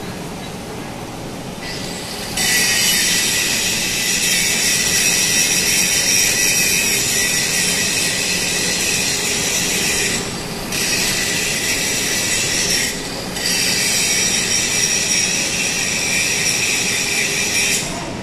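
Loud, steady high-pitched hiss with a whine in it from automated gantry welding equipment, switching on about two seconds in, cutting out briefly twice, and stopping near the end, over a steady low hum.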